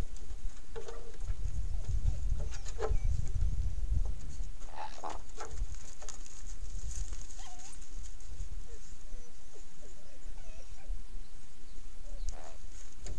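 Mexican gray wolf pups giving a few short whines and yelps, spread out over several seconds, over a steady low rumble on the outdoor camera microphone.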